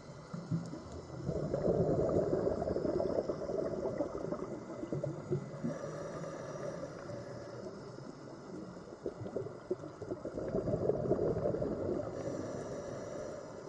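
Underwater bubbling and gurgling, which swells louder about a second in and again around ten seconds.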